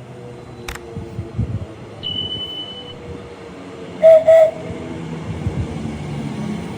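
Train horn sounding two short blasts in quick succession about four seconds in, over the rumble of a train.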